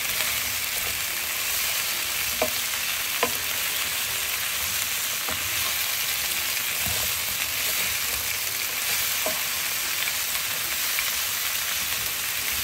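Stir-fry sizzling in a nonstick skillet as fried pork ribs, bell peppers, onion and pineapple chunks are tossed with a spatula. Two sharp clicks of the spatula against the pan come a few seconds in.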